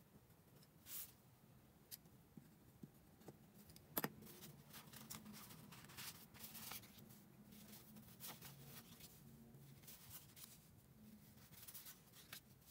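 Very quiet room tone with scattered light taps and paper rustles from pencil and paper being handled, and one sharper tick about four seconds in.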